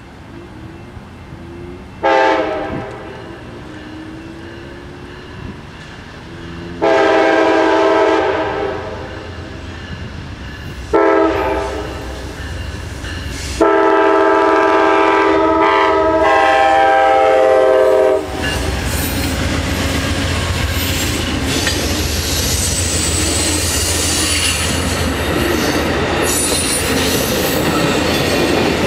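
Amtrak GE P42DC Genesis locomotive sounding its multi-note air horn in four blasts, the third short and the last held about four and a half seconds: the long-long-short-long grade-crossing signal. From about 18 seconds in, the diesel locomotives rumble past and the passenger cars' wheels clatter steadily over the rail joints.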